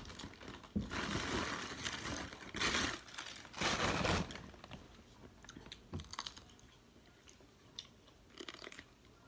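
Crisp crunching of a raw cucumber being bitten into and chewed. The crunching is loudest in the first four seconds or so, then thins to fainter, scattered chewing clicks.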